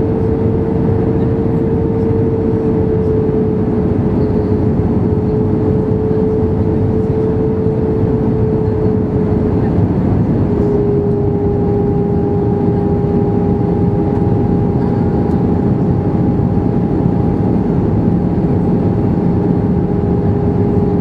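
Airbus A320 cabin noise from a window seat by the wing in flight: a loud, steady roar of jet engines and airflow. Through it runs a steady engine whine that drops slightly in pitch about ten seconds in, when a second, higher tone joins it.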